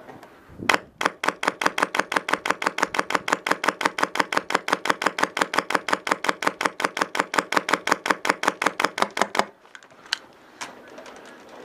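Rapid, evenly spaced mechanical clicking, about seven sharp clicks a second, starting about a second in and stopping abruptly near the end.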